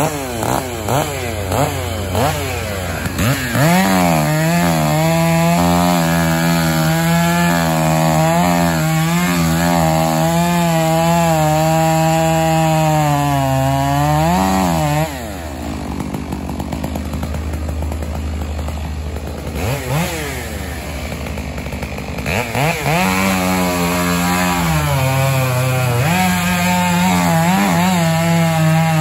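Two-stroke chainsaw held at full throttle for about ten seconds, then dropping back. It revs up again a few seconds before the end, typical of a saw cutting through wood.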